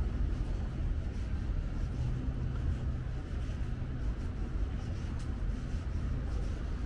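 Steady low rumble of city traffic, with a faint hum that comes and goes.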